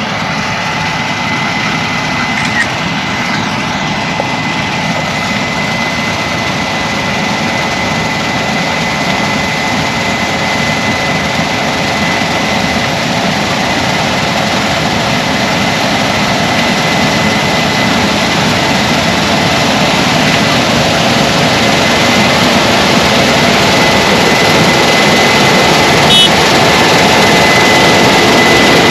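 Heavy farm harvest machinery running steadily under load, a loud engine drone with a thin steady whine over it, growing slowly louder.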